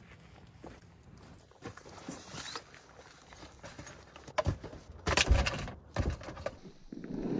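Knocks and thuds of oars being set down in a vinyl inflatable boat, the loudest cluster about five seconds in and another shortly after.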